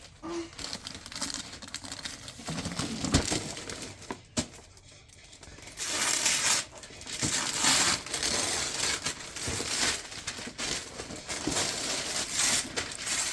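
Wrapping paper crinkling and tearing as a present is unwrapped; fairly quiet with a few clicks at first, then dense rustling from about six seconds in.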